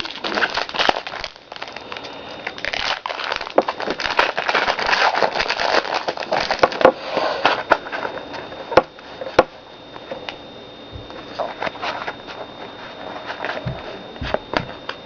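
Foil booster-pack wrapper crinkling and crackling as it is torn open and handled, busiest in the first half. Two sharp clicks come a little past halfway, followed by quieter rustling.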